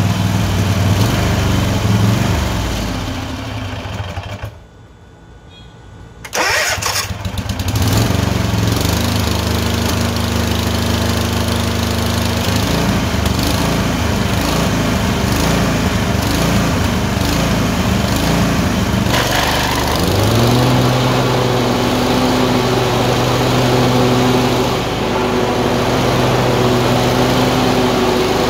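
Tecumseh 22 HP twin-cylinder engine running unevenly. Its sound dies away about four seconds in and comes back sharply a couple of seconds later, then its speed swings up and down: surging, with random misfires alternating between the two cylinders.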